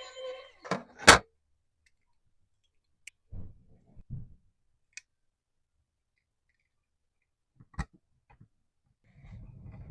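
Scattered clicks and knocks from handling a model car and its packaging. The loudest is a sharp knock about a second in; a soft rustle starts near the end.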